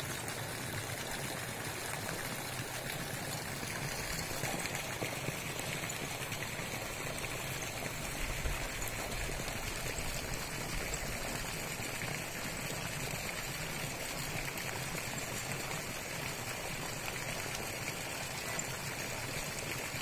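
Steady splashing and pouring of a jet of water spouting from a pipe and falling into a pond.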